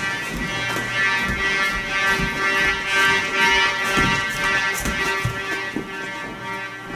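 Fire alarm horns sounding in one steady, continuous tone, heard from another part of the house.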